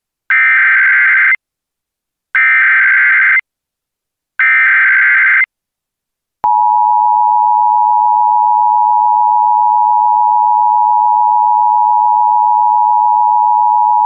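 Emergency Alert System broadcast tones: three one-second bursts of buzzy SAME data header about two seconds apart, then, about six seconds in, the steady two-tone attention signal starts and holds.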